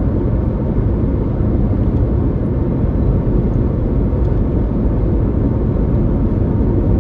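Steady low road and tyre rumble inside the cabin of a moving Toyota Prius.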